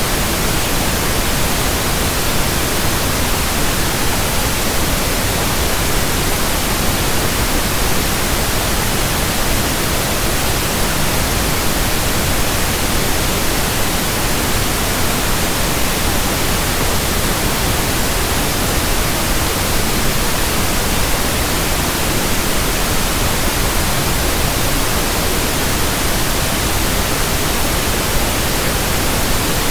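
Continuous synthetic pink noise: a steady, even hiss across the whole range, unchanging in level, with no tones or events in it.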